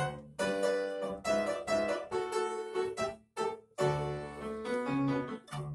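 A children's violin ensemble and an upright piano playing a lively piece together, in short detached phrases separated by brief pauses, with the piano prominent.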